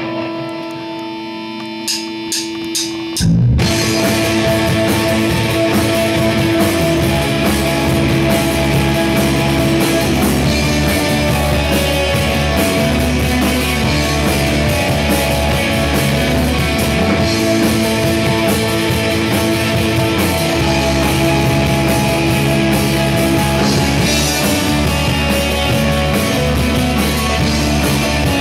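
Rock band playing live in a small room. A guitar holds ringing notes, broken by a few quick clicks. About three seconds in, the full band comes in together with electric guitars, electric bass and drum kit, and plays on steadily.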